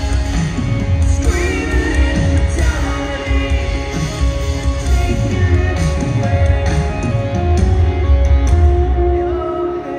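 Live rock band playing through a PA, heard from the audience: drums, bass, electric and acoustic guitars with singing. The low end drops away about nine and a half seconds in.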